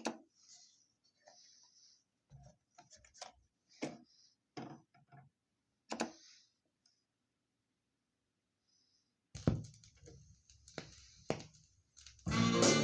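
Scattered short clicks and knocks with faint hiss, quiet between them. Band music with guitar starts up near the end.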